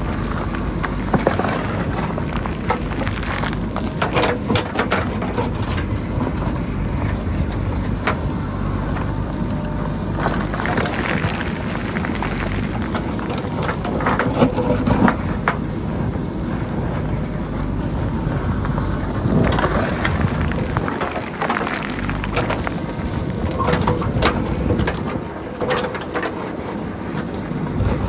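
JCB backhoe loader's diesel engine running steadily under load, with knocks and clatters every few seconds as the bucket works soil and rock on the hillside.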